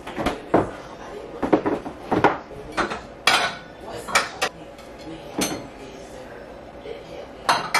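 Dishes and plastic food-storage containers clattering and knocking as they are handled and set down on a kitchen countertop: a dozen or so sharp knocks at irregular intervals.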